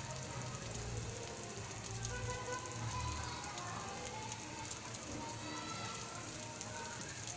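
Eggs with malunggay (moringa) leaves frying in oil in a wok: a steady sizzle with many small crackling pops.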